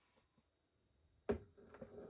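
A single sharp knock about a second in, then faint scattered handling noise from wires and parts being moved on a workbench.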